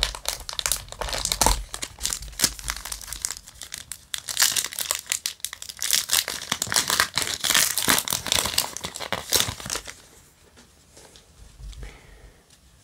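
Foil wrapper of a Yu-Gi-Oh! Maximum Gold booster pack crinkling and crackling as it is handled and torn open by hand. The dense crackling dies away about ten seconds in, leaving only faint handling of the cards.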